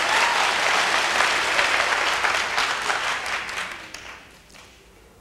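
Large audience applauding, loud at first and then dying away about four seconds in.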